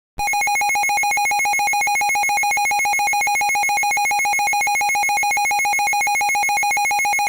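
Electronic emergency-alert tone: one harsh, buzzy pitch pulsing on and off very rapidly, like a ringing telephone. It starts just after the beginning, holds steady and loud, and cuts off abruptly at the end.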